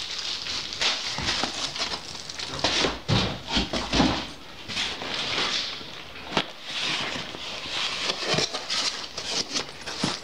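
Cardboard box and its packaging being handled and opened: rustling and scraping of cardboard with many small clicks, and a few dull thumps around three to four seconds in.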